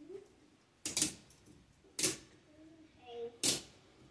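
Household circuit breakers being snapped back on by hand one after another in a breaker panel: several sharp plastic clicks, roughly a second apart.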